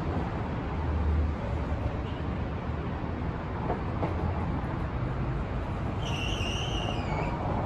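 Downtown street traffic: a steady low rumble of passing vehicles and city hum. About six seconds in, a high, wavering whistle-like call sounds for just over a second, sliding slightly down in pitch.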